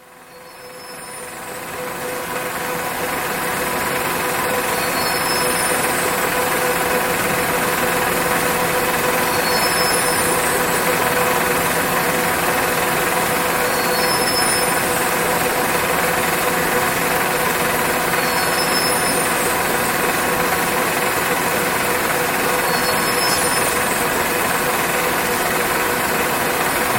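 Textile warping machine running steadily, a dense mechanical whir with a steady hum. A short high-pitched squeak-like sound repeats about every four and a half seconds. It fades in over the first few seconds.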